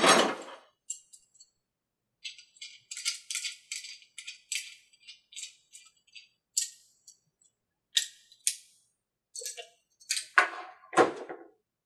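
Small plastic-and-metal clicks and scrapes as a CA glue bottle and its applicator tip are handled and gripped with pliers, in a run of short separate ticks. A louder rustle at the start and two heavier knocks near the end.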